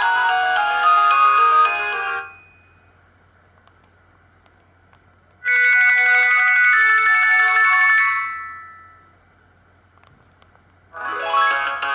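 Polyphonic mobile-phone ringtones, the Sony Ericsson K200i's tones, played one after another through a Sony Ericsson W810i's loudspeaker. One melody stops about two seconds in, a second, chiming tune starts around five and a half seconds and fades out, and a third begins near the end.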